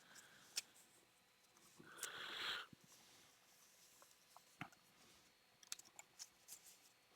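Faint handling of trading cards being slid into plastic card sleeves: a short hissy rustle about two seconds in, then a scatter of small clicks and ticks.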